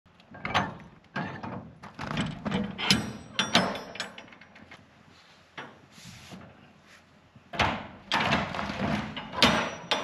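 Steel shipping container's cargo doors being unlatched and swung open: metal clanks and rattles of the locking bars and handles, in a bout of knocks over the first few seconds and a second bout near the end.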